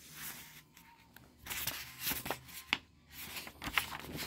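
Paper pages of a hardcover picture book rustling as a page is turned, in two spells of rustle with a few light taps.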